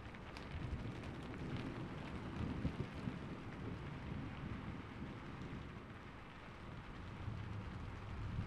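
Steady rain with scattered drop ticks over a low, rolling rumble of thunder.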